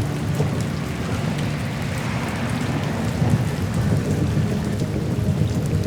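Steady rain with thunder underneath.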